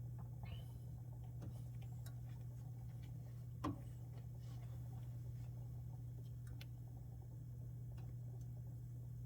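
Samsung Bespoke refrigerator running with a steady low hum, with scattered light ticks and clicks and one sharper click a little over halfway through.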